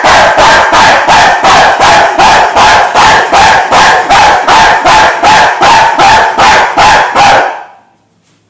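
A man barking like a dog at the top of his voice: a fast, even run of very loud barks, about three a second, that stops abruptly about seven and a half seconds in.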